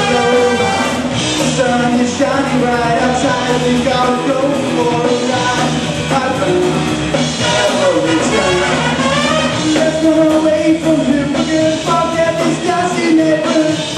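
A live band playing loud rock music, with electric guitar and a singer.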